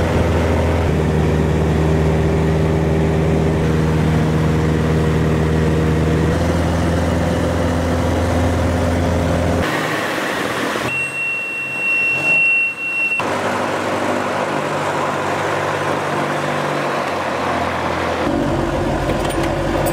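Light aircraft's engine and propeller droning steadily in flight, heard from inside the cabin, with a small shift in pitch about six seconds in. About halfway through the drone drops away briefly while a steady high-pitched beep sounds for about two seconds. The engine drone then returns.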